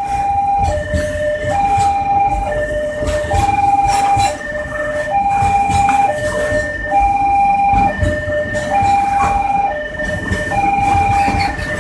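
Container train's flat wagons rolling past close by, with a low rumble and wheel clicks. Over it, an electronic warning signal sounds high and low tones in turn, about one cycle every two seconds.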